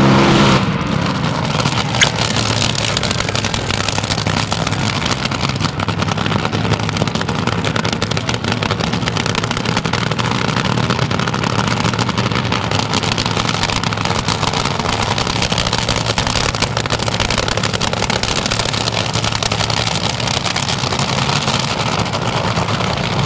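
Supercharged nitro-burning engine of the Winged Express AA/FA fuel altered, revving high for the first half-second and then dropping to a steady running note. A single sharp crack sounds about two seconds in.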